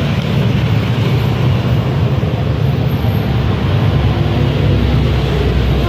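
A steady, loud rumbling noise that does not break or change.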